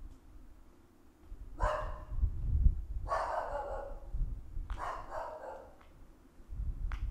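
A dog barking, about four barks a second or two apart, not close by. Low thumps on the microphone run underneath, the loudest about halfway through.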